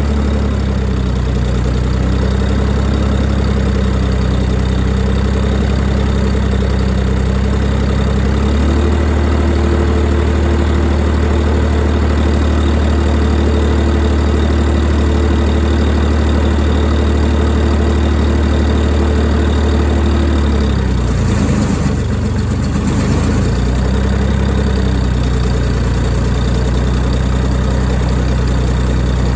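YD385 diesel engine driving an 11 kW generator, running steadily under electrical load testing. Its note changes about 9 seconds in, then sags and recovers over roughly two seconds, from about 21 to 23 seconds in, as a sudden load change hits the genset and the governor catches it.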